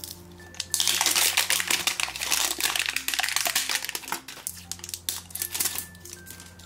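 Crinkly wrapper layer of an L.O.L. Surprise toy ball being peeled off by hand. The crinkling is densest from about a second in and thins to scattered crinkles further on. Soft background music plays underneath.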